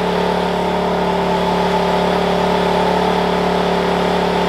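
Wen 56203i inverter generator's small four-stroke engine running at a steady, unchanging speed with eco mode off, under the load of a 13,500 BTU portable air conditioner. It makes an even, constant-pitched hum, with the running air conditioner mixed in.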